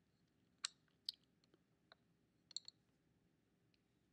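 Near silence: room tone with a handful of faint, sharp clicks, the clearest about half a second in, one about a second in, and a small cluster about two and a half seconds in.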